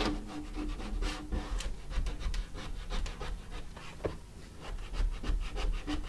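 A plastic ID card used as a squeegee scraping in repeated short strokes over static-cling window film on wet glass, pressing the film flat and working out water and air bubbles.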